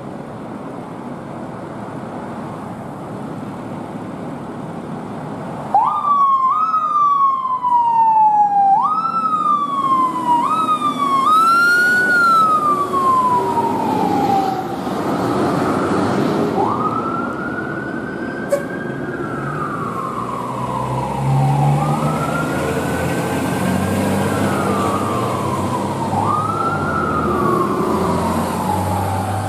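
An emergency vehicle's electronic siren starts about six seconds in, over steady traffic noise. It first gives quick sweeps that rise sharply and fall within a second, then from about halfway settles into a slow wail that rises and falls every four to five seconds. A low engine rumble grows beneath it toward the end.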